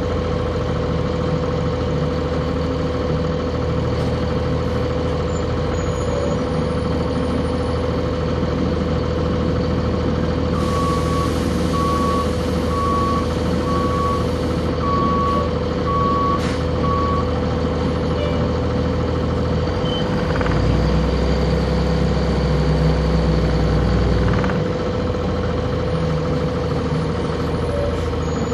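Cummins ISC diesel engine of a 1999 Nova Bus RTS heard from on board, running with a steady hum. About ten seconds in, a hiss sounds along with a string of about six evenly spaced beeps. Around twenty seconds in, the engine note deepens and grows louder for about four seconds.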